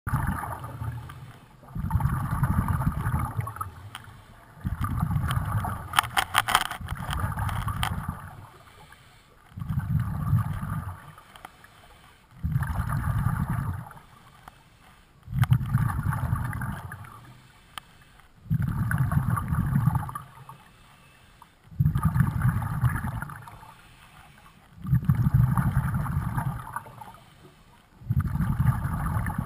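A scuba diver's exhaled breath bubbling out of the regulator underwater: a burst of bubbles about every three seconds, each lasting about two seconds, with quieter inhalations between. A brief run of clicks comes about six seconds in.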